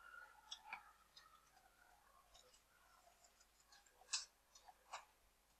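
Near silence with a few faint computer mouse clicks, the two loudest about four and five seconds in.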